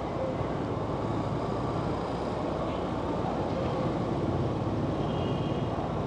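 Steady traffic noise heard from a vehicle moving along a city street: a low engine hum with tyre and wind noise.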